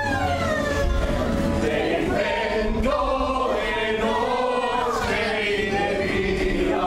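Music with a group of voices singing together, the voices sliding down in pitch at the start and moving between held notes.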